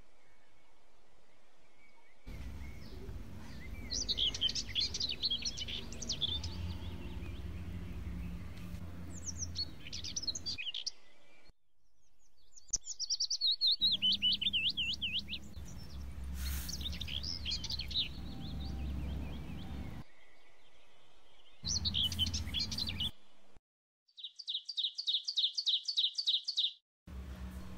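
Small birds chirping and singing over a low background rumble. The sound drops out abruptly several times. Near the end one bird gives a fast run of about a dozen evenly repeated chirps.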